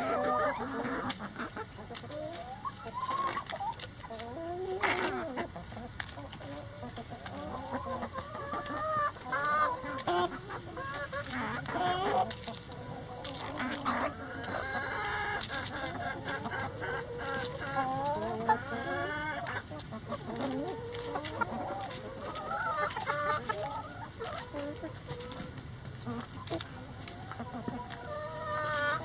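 A flock of backyard chickens, mostly hens, clucking and calling over one another in many short overlapping calls, with a few sharp taps scattered through.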